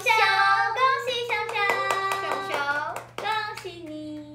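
Young women singing together, with a run of quick, steady hand claps in the middle.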